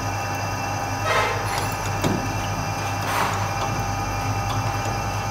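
Metal lathe running with a steady motor hum as its chuck turns a welded-up pinion shaft. There are two brief swishing sounds, about a second in and again after three seconds.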